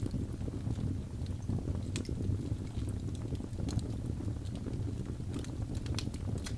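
Wood fire burning in a fireplace: a steady low rumble of flame with irregular crackles and pops from the burning logs, the sharpest about two seconds in and a few more near the end.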